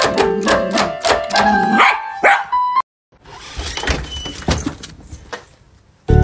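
Casio electronic keyboard playing a tune over a steady beat, cut off abruptly after a few seconds; then, after a short silence, a dog barking.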